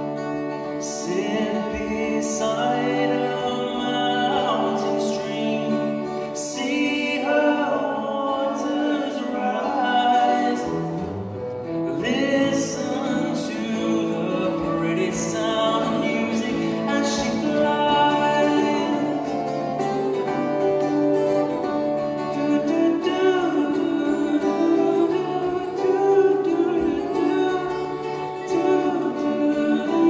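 Live acoustic guitar and violin playing a slow song, with a voice singing over them.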